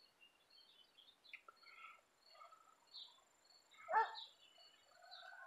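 Faint outdoor ambience: scattered short bird chirps and a thin, steady high insect tone, with one louder short call that falls in pitch about four seconds in.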